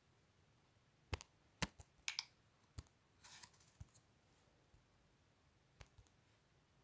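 Near silence broken by a few faint, sharp taps of fingers on a smartphone touchscreen while text is typed on the on-screen keyboard, spaced irregularly about half a second to two seconds apart. There is a brief soft rustle a little past three seconds in.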